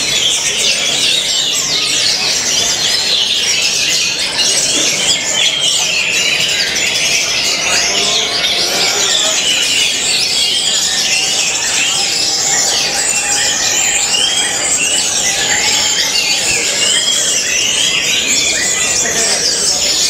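Orange-headed thrushes singing without pause: a dense, fast stream of high whistles, squeaks and chattering notes.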